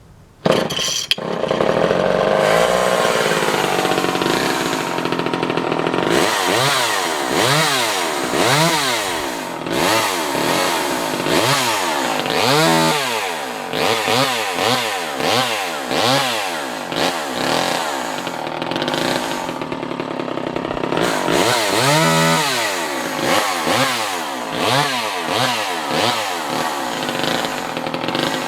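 Poulan 250A vintage two-stroke chainsaw starting about a second in and running, then revved up and back down over and over, roughly once a second. It starts easily and runs well.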